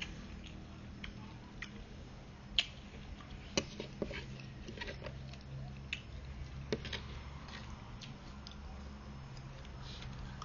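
A person eating noodle soup: chewing, with scattered sharp clicks of utensils against the bowl, over a steady low hum.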